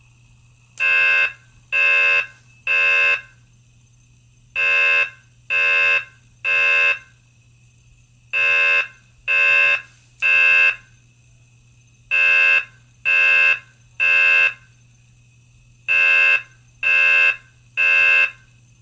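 System Sensor CH2415 piezo fire alarm running on a 12 V DC supply, sounding a pulsed tone in repeating groups of three short beeps with a longer pause between groups: the temporal-three evacuation pattern. It sounds five groups.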